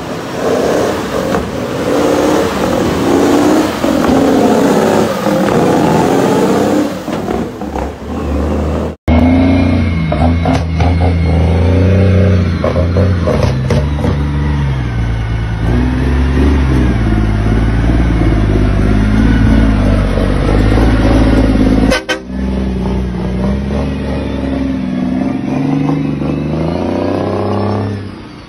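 Heavy diesel dump-truck engines revving hard under load, in three short clips that cut abruptly into one another. In the middle clip the engine note climbs and drops back in steps as the truck works through its gears.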